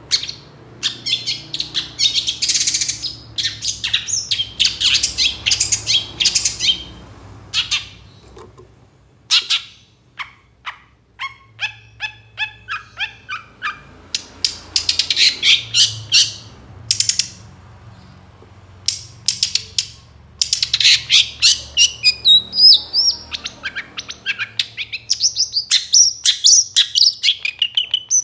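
Long-tailed shrike (cendet) singing a long, varied song: bursts of harsh, scratchy chatter, a run of rapid, sharp clicking notes about halfway through, and quick whistled glides near the end.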